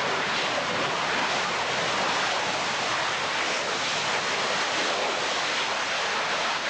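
Panavia Tornado F3 jet fighter's twin RB199 turbofan engines, a loud, steady, rushing roar as the jet rolls along the runway.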